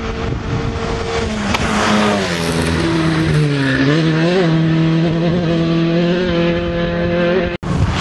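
Rally car engine running hard on a stage. Its pitch steps down over the first two seconds as the car slows, dips again around three and a half seconds, then climbs and holds at high revs as the car comes on. The sound cuts off abruptly near the end.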